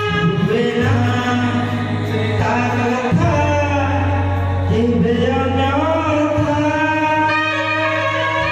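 A man singing a song into a microphone, with long held notes that slide in pitch, over electronic keyboard accompaniment and a steady low bass note.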